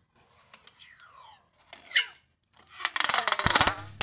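Kapton tape being pulled off its roll and stretched tight around a stack of LiFePO4 cells, a rasping rip. Short pulls in the first two seconds, then one long, loud pull in the last second and a half.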